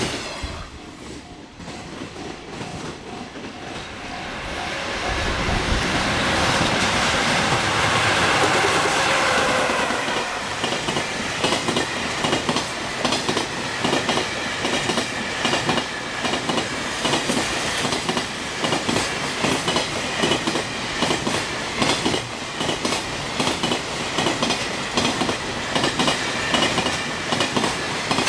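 Freight train passing at speed over rail joints. The approach swells into a loud rush about six seconds in, then the wagons' wheels keep up a rapid, rhythmic clickety-clack over the joints to the end.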